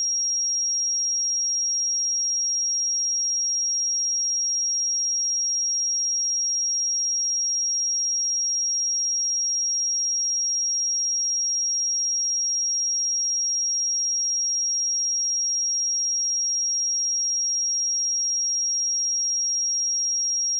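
A steady pure 5621 Hz sine-wave test tone: a single high-pitched electronic whistle, constant in pitch and loudness, with no other sound.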